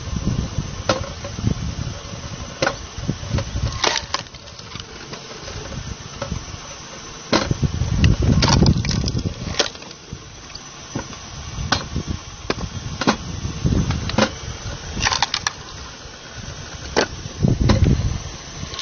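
Belt-driven screw cone log splitter running with a steady hum as its threaded cone bores into logs, which crack and split apart. Sharp cracks and knocks of the wood come every second or two, with heavier rumbling bursts as the logs give way.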